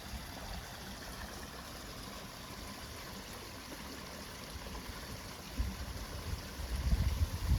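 Water running and trickling steadily into the pond at its inflow drop. From about two-thirds of the way in, irregular low rumbling bumps come in and grow louder toward the end.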